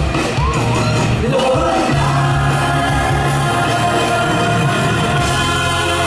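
Live band playing a Cantopop song, with electric guitar and keyboards, and a singer's voice over it through the PA. The singing slides around in the first second or so, then the band holds steady chords.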